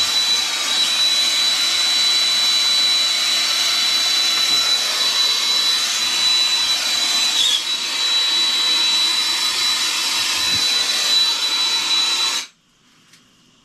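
Gas soldering torch burning with a steady hiss and a thin, steady high whistle while heating a copper pipe and lead-free brass ball valve to sweat the joint with solder. The flame cuts off suddenly near the end as the torch is shut off.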